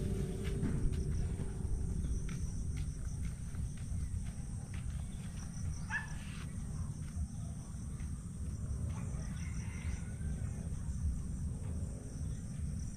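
Outdoor ambience: a steady low rumble with scattered faint clicks and a thin steady high hiss, and one brief rising chirp about six seconds in.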